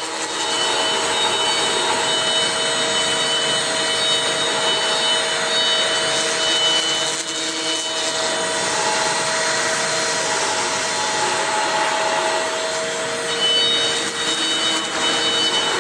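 CNC router spindle running with its bit cutting into a foam block, a steady hissing cutting noise with a high whine through it.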